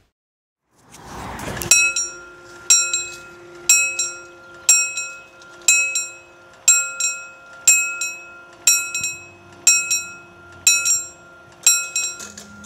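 Railway level-crossing warning bell struck about once a second, eleven strokes in all, each ringing on into the next. A short rising whoosh comes just before the first stroke.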